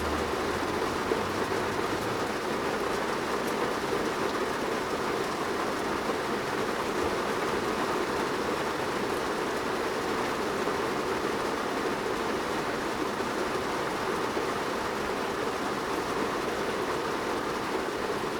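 Rain falling on a car's roof and windscreen, heard from inside the cabin: a steady, dense patter.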